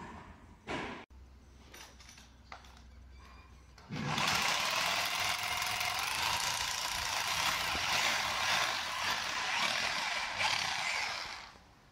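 Electric power drill boring into the stone floor at the floor-to-wall joint, starting about four seconds in and running steadily until it stops near the end, drilling holes for anti-termite chemical injection. A few short knocks come before it.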